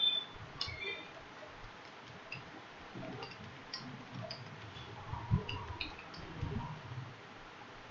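Computer keyboard being typed on slowly: scattered, irregular key clicks with a few duller low thumps.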